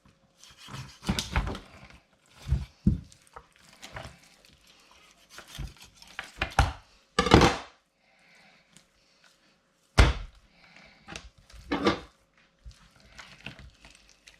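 Filleting a large turbot on a wooden board: irregular thunks and scrapes of knife and fish against the board, with a sharp knock about ten seconds in.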